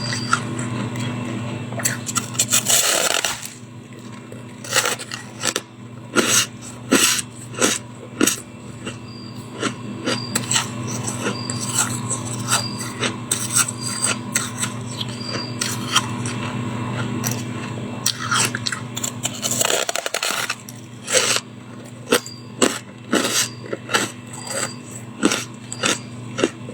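Freezer frost being scraped and crunched between the teeth. Two longer scraping rasps, one about two seconds in and another near the twenty-second mark, with many short, sharp crunches of biting and chewing between them, over a steady low hum.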